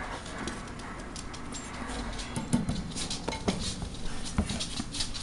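A 4-week-old Maltese puppy moving about in a wire crate: scattered light taps, scratches and knocks, busier and louder from about halfway through.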